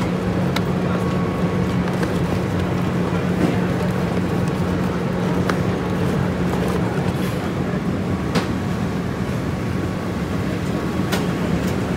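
Steady low hum of a running motor under a constant noisy background, with a few faint clicks scattered through it.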